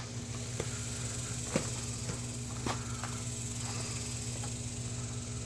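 A few light clicks and rustles from handling a 2002 Dodge Ram 1500 seat's metal frame and wire springs as the worn cover and foam are lifted off, the sharpest about one and a half seconds in. Under them runs a steady low hum and a high hiss.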